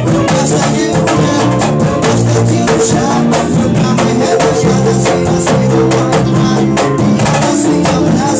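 Band music with drums and percussion keeping a steady beat over bass and chords.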